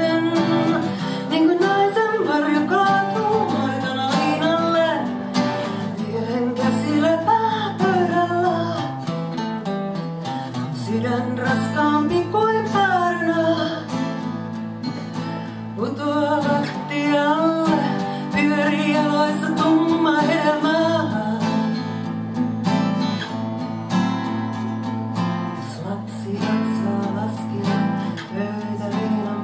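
Two acoustic guitars playing together, picked and strummed, with a woman singing a melody over them; after about twenty seconds the voice drops out and the guitars play on alone.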